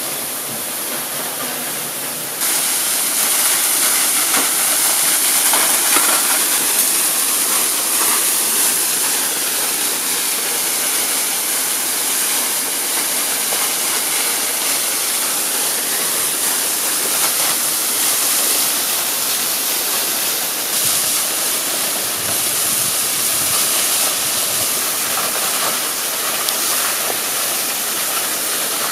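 Steady rush of running water, an even hiss that steps up in level about two seconds in.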